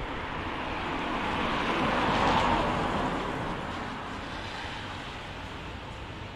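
A car passing on a wet road: tyre hiss swells to a peak about two seconds in, then slowly fades.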